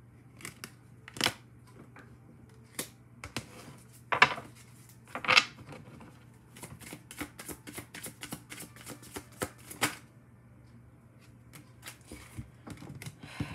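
A deck of oracle cards being handled and shuffled: a few separate card slaps and taps, then a quick run of clicking card flicks lasting about three seconds in the middle.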